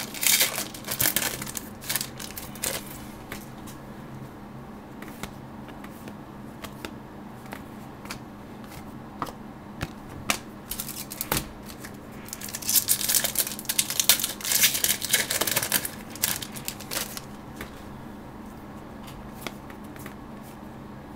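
Trading cards being handled and flipped through by hand: clicking and rustling in two spells, the first few seconds and again about halfway through, over a steady low hum.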